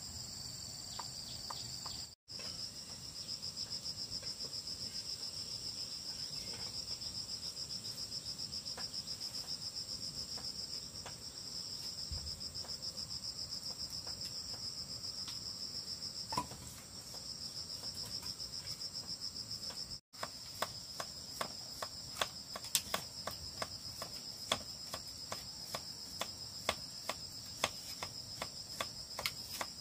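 Insects chirring in a steady, high-pitched chorus. In the last third, a series of sharp clicks or taps sounds over it.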